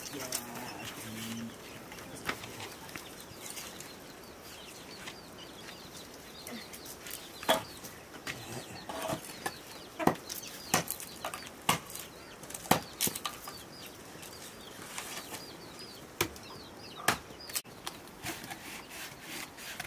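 Sharp knocks of a heavy blade chopping into wood, irregular and about one a second through the middle, over faint bird chirping.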